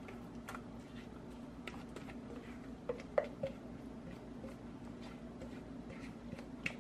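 Light clicks and faint scraping of a spatula against a mixing bowl as thick cornbread batter is scraped into a cast-iron skillet, with three small clicks close together about three seconds in, over a steady low hum.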